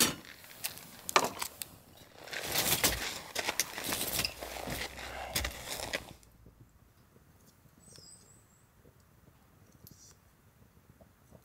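Plastic food packaging rustling and crinkling as it is handled, with light clicks and knocks of utensils and dishes. About six seconds in it drops to quiet forest air, and a bird gives a few short high chirps.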